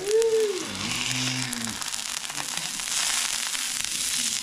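Wagyu New York steak sizzling on a hot barbecue grill, a steady high hiss that swells now and then. A brief voice sound comes in the first second or so.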